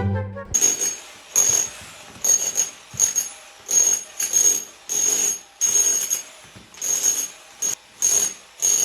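A tool or machine sounding in about a dozen short, unevenly spaced bursts, each a loud hissing rush with a high steady whine in it.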